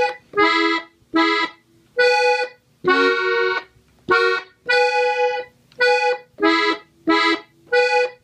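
Gabbanelli three-row button accordion tuned in E, playing an ornament slowly: about ten short, separate chords with brief gaps between them, moving back and forth between two chords.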